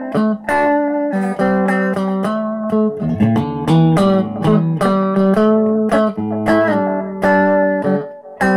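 Solo guitar playing a run of picked notes, about three a second, each with a sharp attack and a short ring, with a brief gap just before the end.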